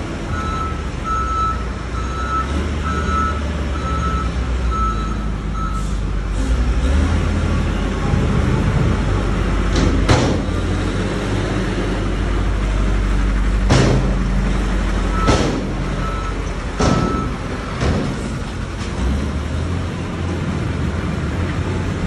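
Diesel dump truck engine running steadily while the truck tips and then lowers its bed of oil palm fruit bunches, with a repeating beep alarm in the first five seconds and again briefly around the middle. A few short, sharp bursts stand out near the middle.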